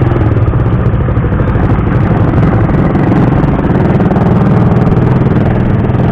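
Suzuki Raider 150's single-cylinder four-stroke engine running steadily.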